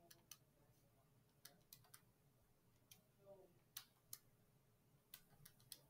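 Faint, irregular clicks of calculator buttons being pressed, about a dozen in all, against near silence.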